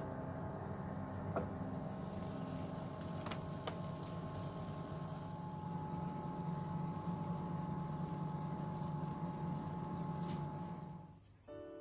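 Steady hum of a Toshiba microwave convection oven's fan running, with a thin steady tone over it and a few faint ticks, just after baking. The hum cuts off near the end.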